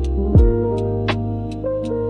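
Instrumental chill music: held chords over a slow beat, with a deep drum hit about half a second in and crisp high ticks between.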